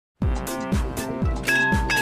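Level-crossing warning bell ringing in a steady rhythm of about two strikes a second, starting as the crossing's red light comes on: the signal that the crossing is closing for an approaching train.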